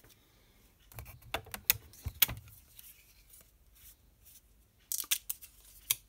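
Scattered light clicks, taps and rustles of small craft items being handled, one cluster about a second in and another near the end.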